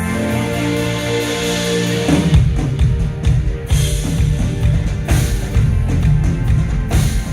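Live rock band playing at a sound check: held sustained chords, then about two seconds in the drums and bass come in hard and the full band plays on with a steady beat.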